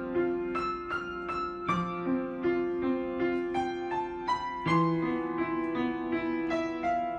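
Background piano music: a gentle melody of single struck notes, about three a second, over longer held low notes.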